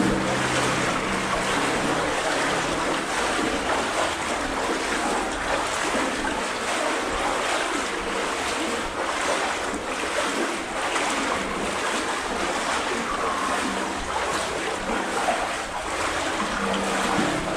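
Legs in waders wading through deep water, a steady sloshing and swishing with faint strides about a second apart.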